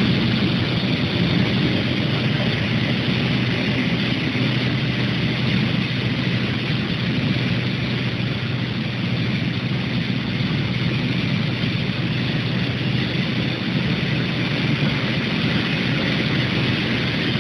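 Induction bar quenching furnace line running: a constant low hum over a steady, even hiss, with no change throughout.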